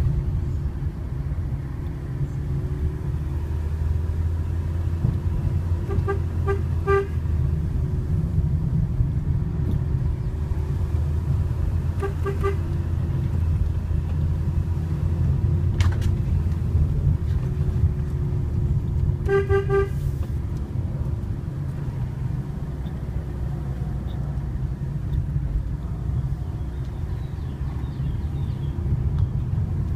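Fiat Panda driving downhill with a steady low engine and tyre drone, and its horn tapped in short toots: three quick toots about six seconds in, two around twelve seconds and two more near twenty seconds, warning oncoming traffic on a one-lane road. A single sharp click falls about halfway through.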